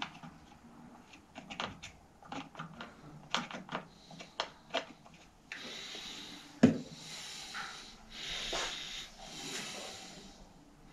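Small metal clicks and taps of a hand tool working at a bicycle sprocket clamped in a bench vise. About halfway through these give way to a cloth rag rubbing in patches, with one sharp knock shortly after the rubbing starts.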